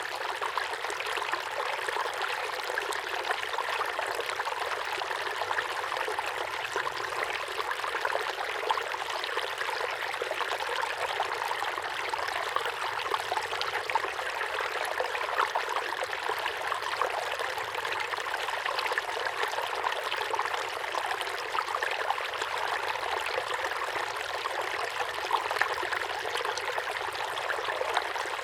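Small waterfall pouring steadily into a pond: an even splashing rush of falling water with small trickling flickers.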